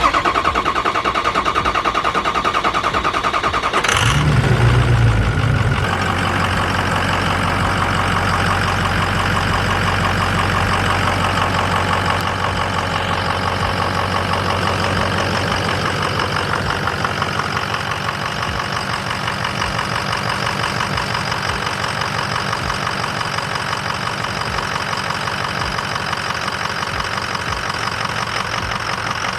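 Ford 6.0 Powerstroke V8 turbodiesel cranking on the starter for about four seconds, catching with a brief surge, then settling into a steady idle. This is a start-up just after the number 4 injector was replaced to cure a rough idle and stalling.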